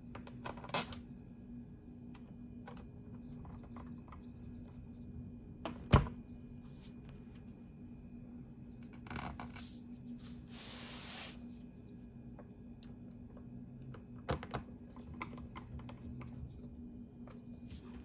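Scattered light clicks and taps of screws and a screwdriver being handled on a laptop's plastic base, with one sharp knock about six seconds in and a brief rustle about ten seconds in, over a faint steady hum.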